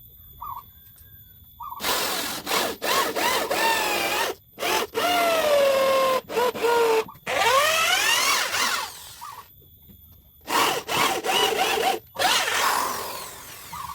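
Power drill boring dowel holes into a wooden table leg in about six runs of a second or more each, with short stops between. Its whine dips and rises in pitch as the bit bites into the wood and frees.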